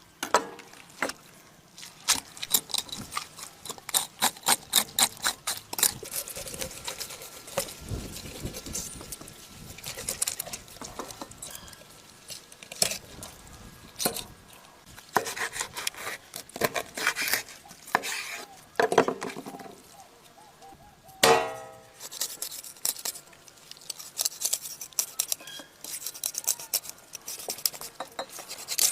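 Quick runs of clicking, scraping strokes, like a utensil or blade worked against a hard surface, in several bursts with pauses between, and one louder knock about two-thirds of the way through.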